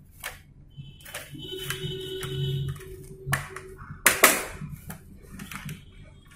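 Plastic snap-fit clips of a Dell laptop's palmrest clicking and snapping as the panel is pried off the base by hand. The loudest snap comes about four seconds in.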